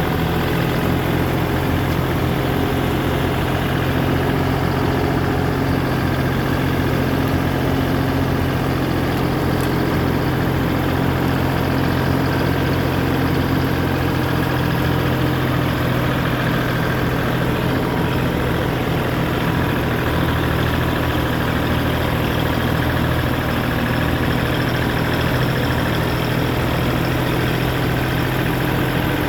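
The engine of a backhoe or tractor running steadily at constant speed, a low, even drone with no revving or load changes.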